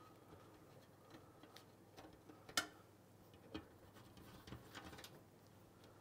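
Near silence with a few faint clicks and taps from a PC case being handled, the loudest about two and a half seconds in.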